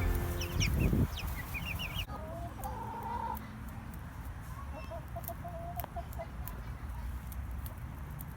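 Chickens clucking. High, short peeps sound over music that ends about a second in. After a cut about two seconds in, hens give several drawn-out clucking calls.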